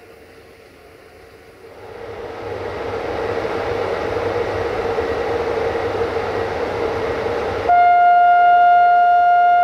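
A rush of train noise swells from about two seconds in. Near the end, a CFR 060-EA electric locomotive sounds its horn: one long, loud blast on a single steady pitch with bright overtones.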